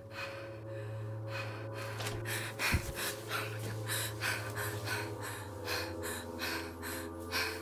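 A young woman breathing fast and unevenly in fear, in short gasps about twice a second, over a low steady droning tone in the film score. A single dull thump comes about two and a half seconds in.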